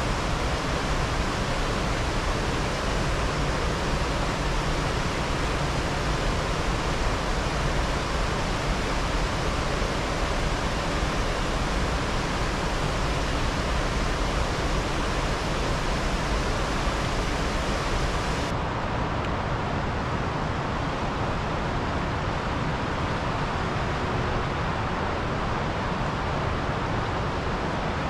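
Steady rushing of a mountain river, an even, unbroken noise; about two-thirds of the way in it changes abruptly to a duller rush with less hiss.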